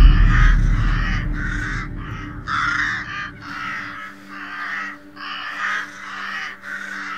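Crows cawing over and over, about two harsh caws a second, over a low steady drone. A deep boom is at its loudest at the very start and fades away over the first few seconds, typical of a horror-film soundtrack.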